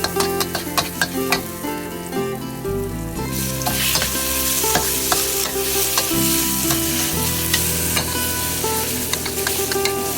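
Mixed seafood and holy basil stir-frying in a hot pan: a steady sizzle, growing stronger a few seconds in, with the quick clicks and scrapes of a spatula tossing the food. Background music plays under it.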